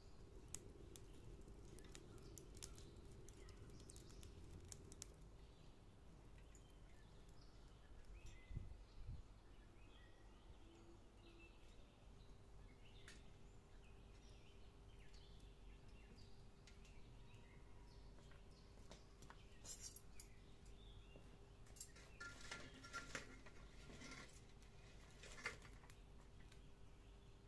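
Near silence: faint outdoor background with a steady low hum, a few faint bird chirps, and scattered small clicks and taps that cluster near the end.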